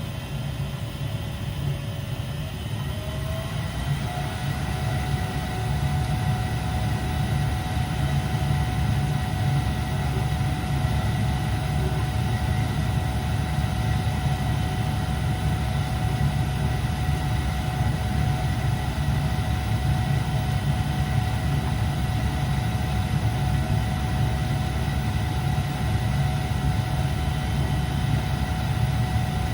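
Lennox furnace running with a steady whir over a low rumble; about three seconds in a motor tone rises in pitch, as if coming up to speed, then holds steady.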